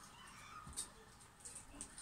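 Near silence: quiet room tone with a few faint soft ticks and rustles.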